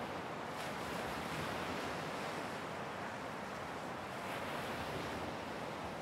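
Ocean surf breaking and washing up a beach: a steady rush of water that swells slightly about a second in and again past four seconds as waves come in.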